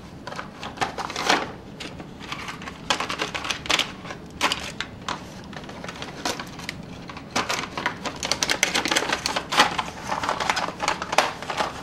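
Small cardboard boxes being handled and opened: irregular rustling, clicking and tapping of cardboard flaps, busiest in two spells in the first half and near the end.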